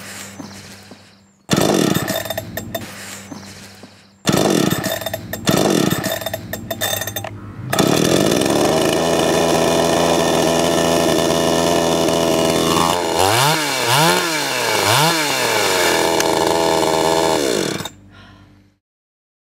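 52cc two-stroke petrol chainsaw being pull-started with the choke pushed in: two sharp pulls each fire it briefly before it dies away, then about eight seconds in it catches and runs steadily at idle. It is revved three times in quick succession, returns to idle, and is switched off near the end.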